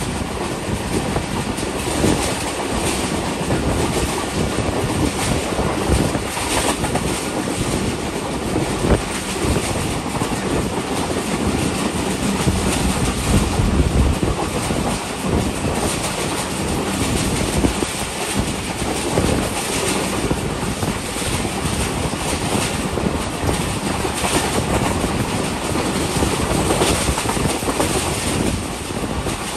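Passenger train running at speed, heard from on board: a steady rush of rolling and wind noise with frequent irregular clicks and rattles of the wheels over the track.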